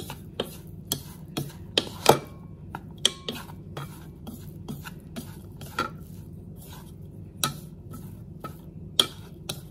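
Wooden chopsticks stirring and tossing flour-coated coral mushroom pieces in a bowl, knocking and clicking against the bowl's side in an irregular run of sharp taps, one or two a second, the loudest about two seconds in.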